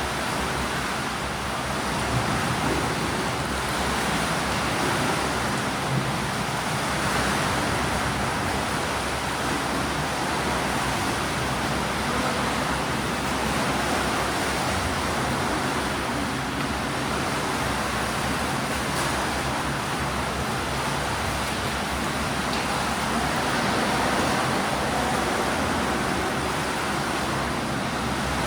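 Steady churning wash of water in a swimming pool, as swimmers kick and stroke through the water.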